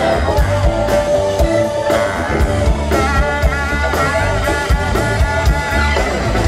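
Live rock band playing through a PA, with drums keeping a steady beat, electric guitar and a baritone saxophone.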